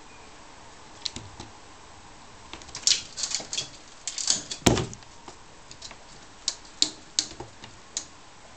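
A cat's claws catching and scraping on a window insect screen as it climbs the mesh, making a string of clicks and rattles, with one heavier thump about halfway through.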